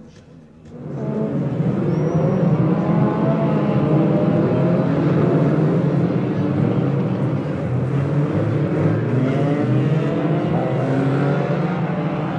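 Several banger racing cars' engines running and revving together on the track, cutting in suddenly about a second in and staying loud, with the pitch of the engines rising and falling.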